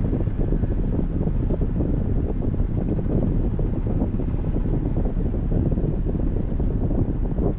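Steady low rumble of wind buffeting the microphone and road noise from a moving car, unbroken by any distinct event.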